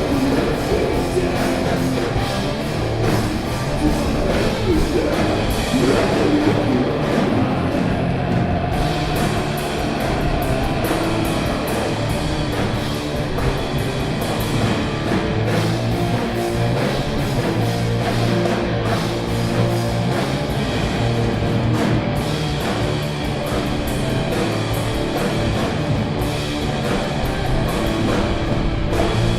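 A rock band playing stoner metal: heavy electric guitars and a drum kit going steadily throughout, with some singing.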